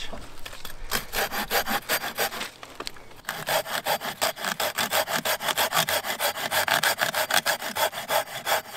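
Stedi folding pruning saw cutting through a thin branch by hand: even back-and-forth rasping strokes, with a short lull about three seconds in before the strokes pick up again.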